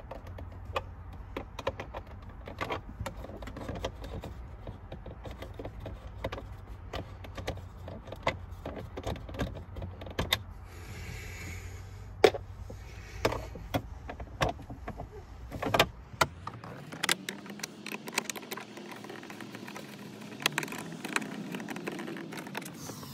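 Small open-end steel wrench clicking and clinking irregularly against the bolts and plastic dash tray of a Ford Super Duty as small 7 mm bolts are worked loose by hand, without a socket. A low steady hum runs beneath the clicks and stops about two-thirds of the way through.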